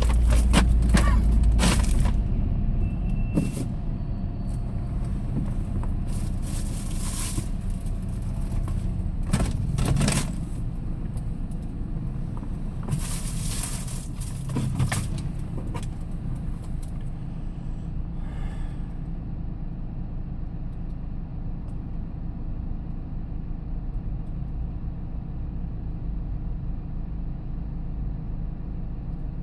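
A vehicle running on the road, heard from inside the cab: a steady engine drone and road rumble, with a few short rattles and scrapes in the first half.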